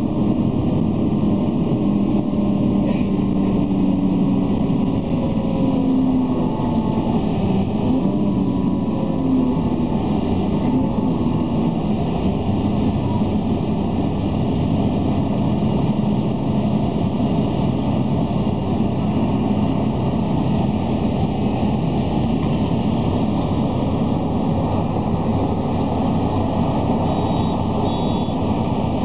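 Steady road and engine noise of a moving vehicle, heard from inside the cabin. A short pair of high pips comes near the end.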